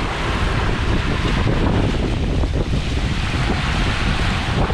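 Wind buffeting the microphone over the steady rush and splash of a sailboat's foaming wake at sea.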